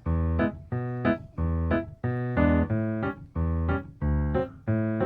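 Background music: a bouncy piano or electric-piano tune with short rhythmic chords.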